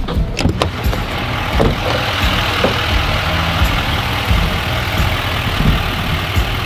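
Chevrolet Silverado 2500HD pickup truck's engine running low and steady as the truck crawls along a sandy dirt trail, with a steady hiss that grows in about two seconds in and a few sharp clicks near the start.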